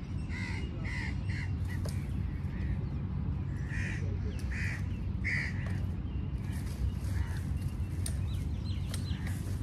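A crow cawing in short calls: three quick caws near the start and three more about four to five seconds in, over a steady low rumble.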